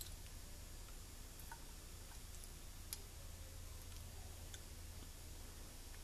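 A few faint, sparse clicks of a small screwdriver turning a grip screw into a revolver's grip panels, over a low steady hum.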